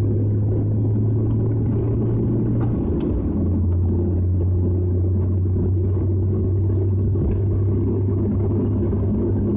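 Nissan Skyline GT-R (BNR32) running on the road: a steady low drone with overtones, with a short break in the tone about three seconds in before it settles back to the same steady pitch.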